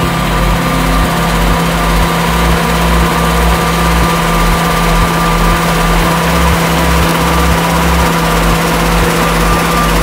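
John Deere W550 combine harvester running steadily while harvesting: the engine and threshing machinery make a loud, even mechanical noise with a steady hum.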